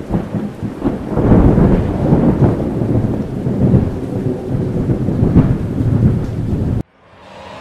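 Thunderstorm sound effect: rumbling thunder swelling repeatedly over steady rain, cutting off abruptly near the end.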